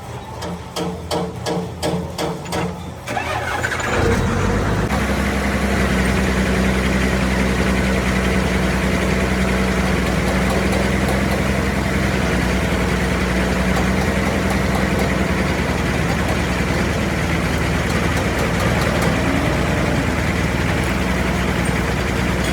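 Hitachi excavator's diesel engine cranked by the starter, chugging about four times a second, catching about four seconds in and then running at a steady idle.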